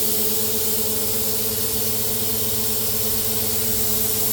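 CNC plasma cutter torch hissing steadily as it cuts steel plate, over the steady hum of the downdraft table's fan.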